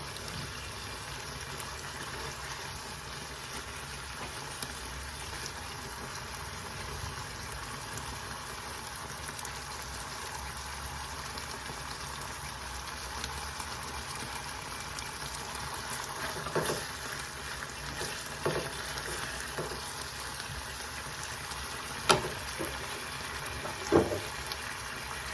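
Food sizzling steadily in a hot pan, with a few sharp knocks in the last third.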